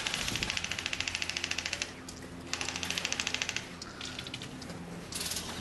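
Airsoft rifle firing on full auto: a burst of rapid, evenly spaced shots, about a dozen a second, lasting nearly two seconds. A second burst of about a second follows, then two short bursts near the end.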